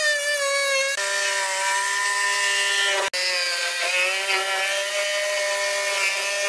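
Small angle grinder with a cutting disc running as it cuts through a plywood wall panel, giving a steady high motor whine. There is a brief break about three seconds in.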